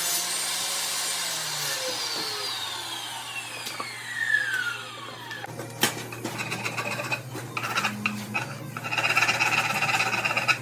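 Power saw winding down after a cut through a wooden post, its whine falling in pitch over about five seconds. A few sharp knocks follow, then a louder stretch of wood rubbing and scraping near the end.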